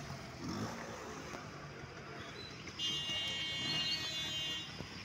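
Road traffic on a wet road: a steady hiss of vehicles and tyres. From about three seconds in, a high-pitched vehicle horn sounds steadily for about two seconds.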